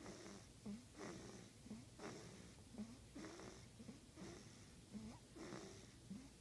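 Faint snoring from a sleeper: a short, snorting breath about once a second.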